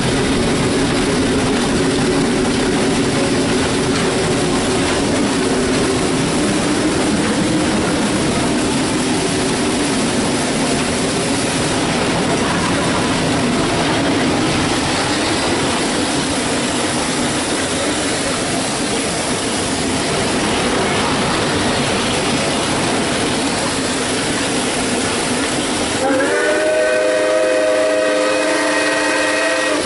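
Inside the cab of steam locomotive Southern Pine Lumber Co. #28 under way: a steady hiss and rumble of steam and running gear. About four seconds from the end, the locomotive's steam whistle starts blowing, several notes sounding together in one held blast.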